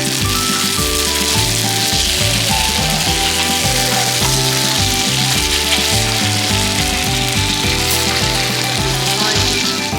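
Food sizzling as it fries, a steady hiss, under background music with a stepping bass line.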